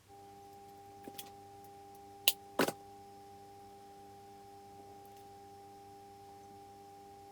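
A steady held tone of several pitches sets in and continues unchanged, with two small clicks about a second in and two sharp clicks a little over two seconds in.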